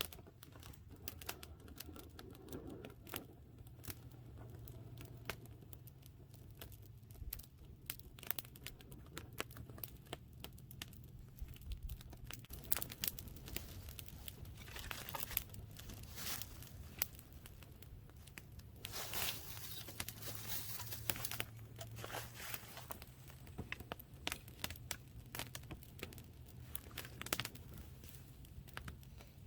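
Hands tearing and crinkling dry material, with many small sharp clicks and snaps and a few longer rustling tears about halfway through.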